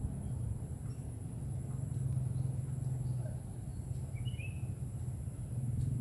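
Steady high-pitched drone of insects, with a short bird chirp about two-thirds of the way through, over a steady low hum.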